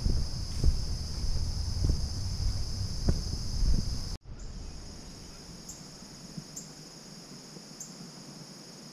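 Crickets trilling steadily in a high-pitched, continuous chorus. Low rumble and scattered knocks sit under it for the first four seconds, then stop abruptly, leaving the insect song with a faint extra chirp about once a second.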